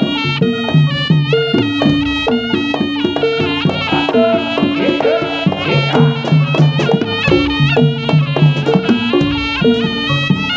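Jaranan ensemble music: a loud, reedy wind instrument plays a wavering, ornamented melody over drums and a repeating low pitched figure.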